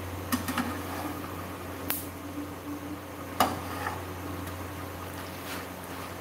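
Spatula scraping and tapping against a nonstick frying pan as it presses and shifts an egg sandwich frying in the pan. There are a few sharp clicks over a steady low hum, the loudest about three and a half seconds in.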